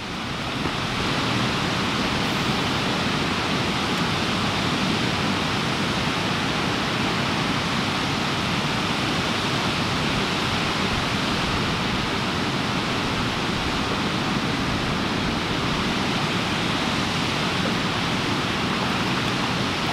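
Steady, even rush of water pouring through the gates of a river dam.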